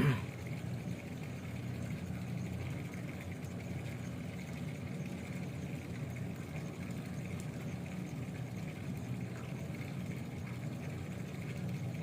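A steady, low engine-like hum, with a short sharp sound right at the start.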